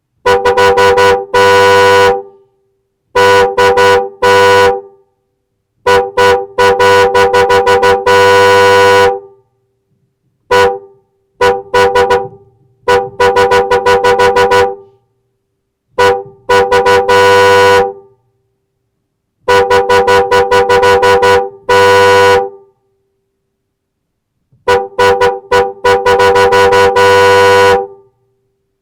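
Car horn honking over and over in groups of quick toots and longer held blasts, each group a few seconds long with short silences between.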